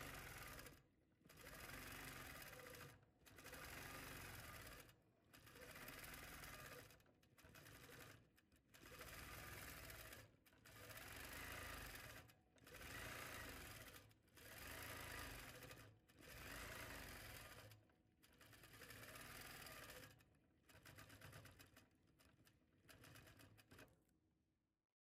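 Longarm quilting machine stitching through a quilt, faint, running in bursts of a second and a half to two seconds with brief pauses between them, about a dozen times, then stopping near the end.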